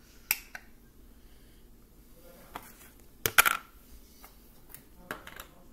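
Sharp clicks and clatters of plastic slime containers and lids being handled and set down on a granite countertop. A quick cluster of knocks about three and a half seconds in is the loudest.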